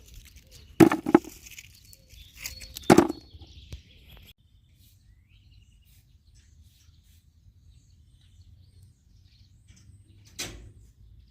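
A few sharp knocks and cracks, a pair about a second in, one at three seconds and one near the end, with faint bird chirps in between over a quiet low rumble.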